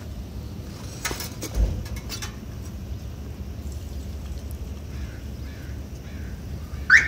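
Crows cawing a few harsh times, with fainter bird calls, over a low steady outdoor rumble. A short, sharp rising call near the end is the loudest sound.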